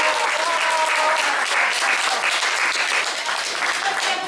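Audience applauding steadily, with a few voices audible through it.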